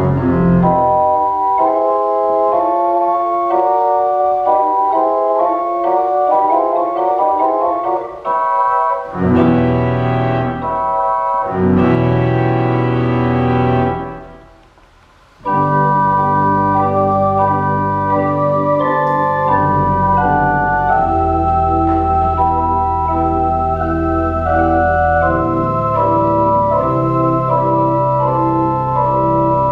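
Organ duet between a small OrgelKids wooden kit pipe organ and a full organ. It opens with high runs of notes climbing upward with no bass, then loud low chords come in. After a brief pause about halfway through, both play on together with bass and melody.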